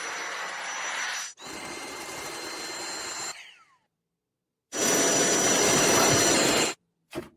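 Cordless vacuum cleaner motor running with a high whine, heard in short separate runs that start and stop abruptly. About three seconds in, one run winds down with a falling whine as the motor switches off. The last run, after a second of silence, is the loudest.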